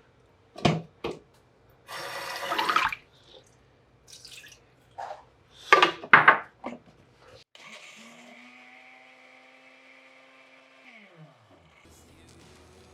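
Kitchen handling sounds: a few sharp knocks and clacks, a brief burst of running or splashing water, then a small motor humming steadily for about three seconds before it winds down and stops.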